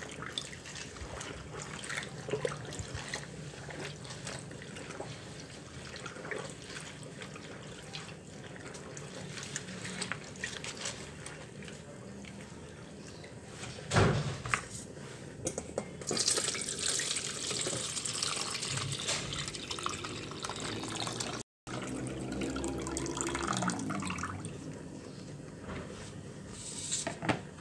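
Hands swishing and splashing melinjo leaves in a plastic basin of water as they are washed, with water dripping. A sharp knock comes about halfway, then a stretch of louder hiss.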